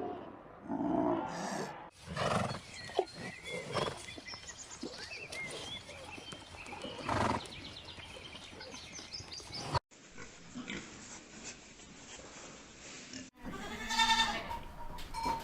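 Animal calls from several separate clips, cut abruptly one after another: a busy stretch of mixed calls and short high chirps, a quieter stretch, then a loud pitched call near the end.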